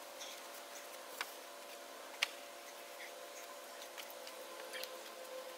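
A few faint, sharp wooden clicks and knocks as a frame of lumber boards is lifted and tipped against its sawhorses, the clearest about two seconds in, over a faint steady hum.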